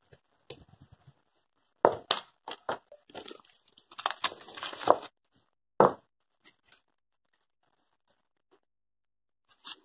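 White adhesive tape pulled off its roll and torn, rustling as it is wrapped around the bundled flower stems. It comes in a few short scratchy bursts in the first six seconds, then goes mostly quiet.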